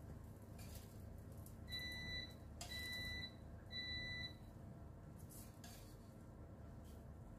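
Three identical electronic beeps, each about half a second long and evenly spaced about a second apart, with a few faint clinks of a spatula against a frying pan.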